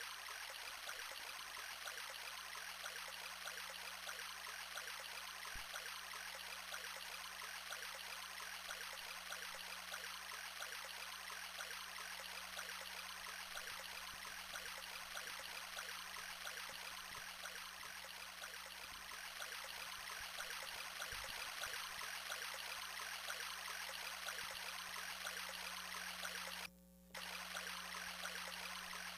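Fisher-Price Ocean Wonders Aquarium Soother playing its steady rushing-water sound, with a low steady hum underneath. The sound drops out briefly near the end.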